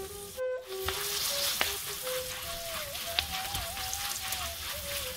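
Green chillies frying in hot oil with peanuts, roasted chana dal and curry leaves in a kadhai: a steady sizzle, with a few sharp ticks as a spatula stirs them, over soft background flute music.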